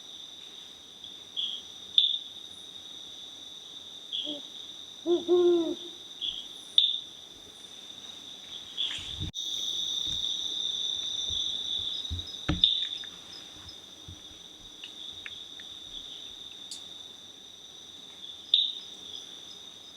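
Night-time tropical forest insect chorus: a steady high-pitched trilling of crickets, with a short low hooting call about five seconds in and a few sharp chirps scattered through.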